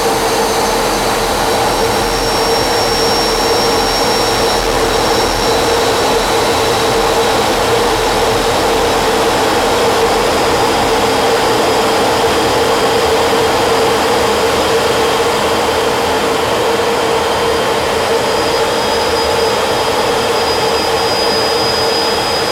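Steady, loud rushing machine noise with a constant mid-pitched hum and a faint high whine, unchanging throughout.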